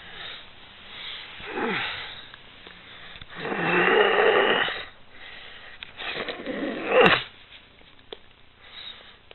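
A sleeping woman snoring: three rasping breaths, the longest and loudest about three to five seconds in, the last ending in a sharp click about seven seconds in.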